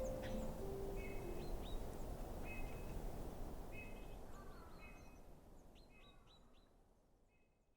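Small bird calling repeatedly, short sharp notes with an upward flick about once a second, over a low hum of outdoor ambience; everything fades out towards the end. A last plucked music note dies away near the start.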